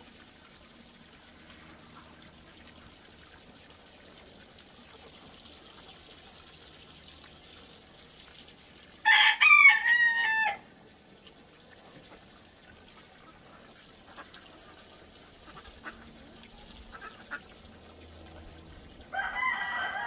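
A rooster crows loudly once, about nine seconds in, a drawn-out call of about a second and a half in several pitched segments. A fainter, shorter call comes near the end, over a faint steady background.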